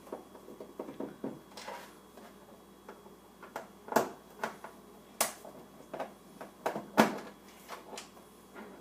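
Irregular sharp clicks and knocks from hand-removing screws from the plastic back panel of a flat-screen TV with a screwdriver, three of them louder, about four, five and seven seconds in.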